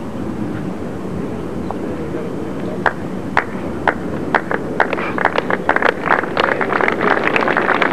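Spectators applauding a bowl drawn close to the jack: a few separate claps about three seconds in, building into steady clapping over a constant background hiss.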